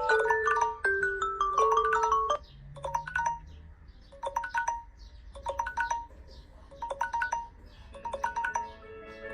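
Samsung alarm ringtones playing. A quick bell-like melody runs for about two seconds, then a quieter short two-note chime repeats roughly once a second. A fuller chiming melody starts near the end.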